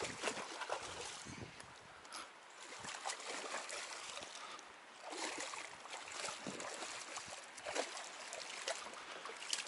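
A hooked fish splashing at the water's surface in irregular bursts as it is reeled in close to the bank.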